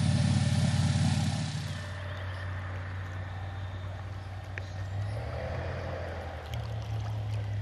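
Airboat engine and propeller running across the lake, a loud low drone that drops off about two seconds in to a quieter, steady low hum.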